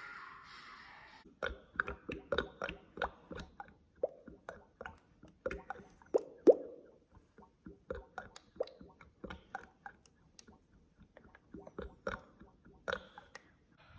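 Oil sloshing: a quick, irregular run of wet plops and squelches, some with a short falling pitch, beginning about a second and a half in after a faint hiss, the loudest about halfway through.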